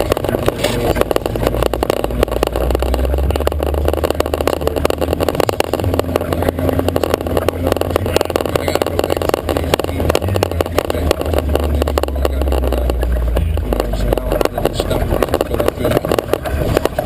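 Jeep Wrangler YJ's engine running at a low, steady drone over a constant rattling of the vehicle on rough trail. The low drone drops away about three-quarters of the way through.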